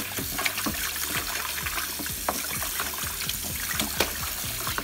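Tap water running in a thin stream into a plastic basin over a whole raw chicken, with many small splashes and sloshes as hands rub and turn the wet chicken in the water.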